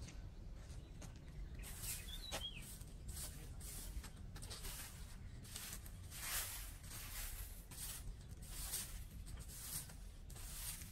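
Broom sweeping dirt and dry leaves across paving, a run of repeated scratchy strokes, about one or two a second. A bird chirps briefly about two seconds in.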